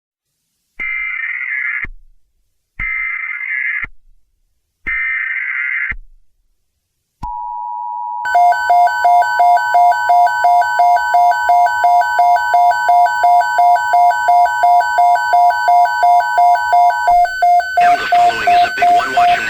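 Emergency Alert System tones: three one-second screeching bursts of SAME header data with one-second gaps between them, then the steady two-tone EAS attention signal. About a second after the attention signal begins, a loud beeping alarm tone joins it, pulsing a few times a second and carrying on after the attention signal stops; a loud noisy hiss cuts in near the end.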